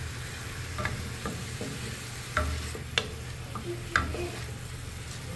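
Chopped onion sizzling in olive oil in the pot of a pressure cooker while it is stirred, the utensil knocking and scraping against the pot about six times, sharpest about three and four seconds in.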